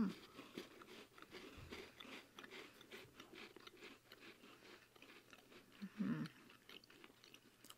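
Two people chewing and crunching dense Bakers Eet-Sum-Mor shortbread biscuits close to the microphone, a steady run of faint crunches. About six seconds in there is a brief hum of a voice.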